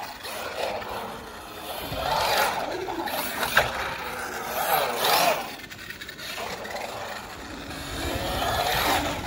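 Electric radio-controlled car driving hard over concrete: the motor whine rises and falls several times as it accelerates and backs off, over a constant scraping and grinding of tyres on the surface.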